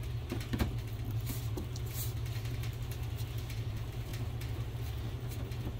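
Light scratching, rustling and small clicks of blue painter's tape being pressed and smoothed onto a plastic bumper by gloved hands, over a steady low hum.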